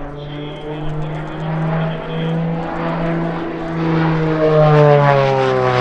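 Twin piston engines and propellers of an Aero Commander in flight, a steady propeller drone that grows louder and then drops in pitch about three-quarters through as the airplane passes.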